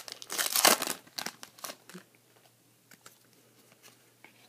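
Foil Pokémon booster pack wrapper crinkling loudly as it is torn open in about the first second, followed by a few softer crinkles over the next second.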